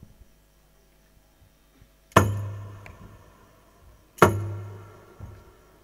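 Rapai frame drums struck together by a group of players: two single loud strokes about two seconds apart. Each stroke rings on with a low boom that fades over a second or so.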